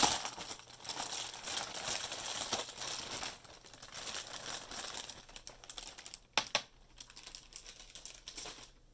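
Packaging crinkling and rustling as a socket organizer is unwrapped, densest for the first few seconds, then lighter, with a couple of sharp knocks about six and a half seconds in.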